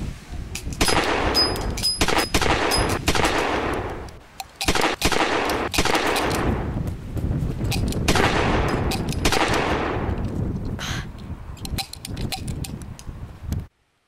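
Gunfight sounds: rapid volleys of gunshots, several shots in quick succession with long dying tails, repeating every few seconds, then cutting off abruptly near the end.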